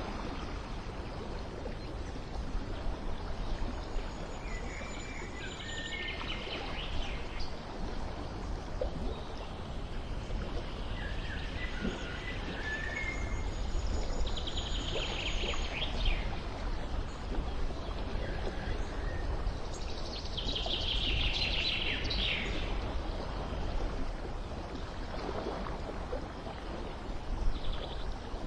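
Songbirds chirping in short, separate bursts, about five times, over a steady rushing background noise with a low rumble.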